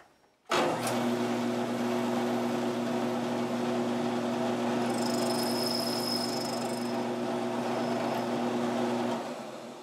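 Milling machine switched on, its spindle running steadily as a boring head takes a light pass through the hole in a small brass part, with a faint high whine about halfway through. It is switched off near the end and spins down.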